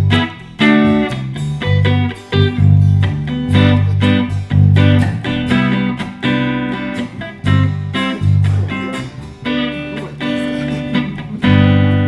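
Guitar playing an instrumental passage, chords struck and left ringing in an irregular rhythm.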